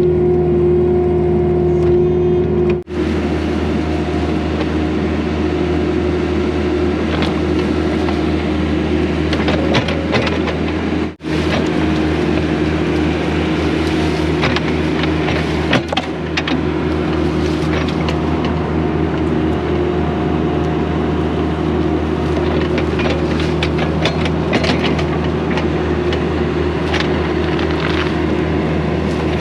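Mini excavator's diesel engine running steadily under hydraulic load while the machine pulls a dead tree out of the ground, with scattered cracks and knocks from the roots and wood.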